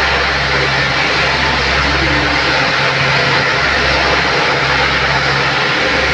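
Military aircraft engines running loud and steady: a dense, even noise with a low hum underneath.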